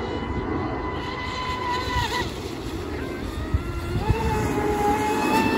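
Radio-controlled deep-vee offshore boat running at speed, its motor giving a high whine. The whine climbs slightly, drops away just after two seconds in, and comes back on at a steady pitch about four seconds in.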